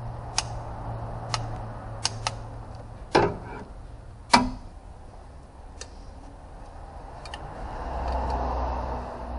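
Metal hand tools clicking and clinking against engine parts: about eight separate sharp clicks, the two loudest about three and four and a half seconds in. A low steady hum runs underneath.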